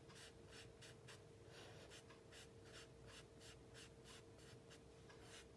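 Compressed charcoal stick scratching on drawing paper in short, quick, repeated strokes, about three a second, as dark stripes are reinforced; faint.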